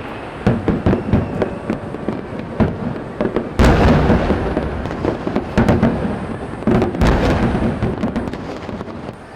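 Aerial fireworks shells bursting: a rapid run of sharp bangs and crackles, with two heavy booms about three and a half and seven seconds in, each echoing off into a rumble that fades near the end.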